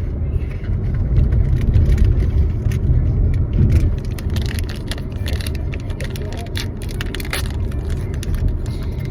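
Steady low road rumble inside a moving car's cabin. From about four seconds in there are scattered small clicks and rustles of small pieces and packaging being handled.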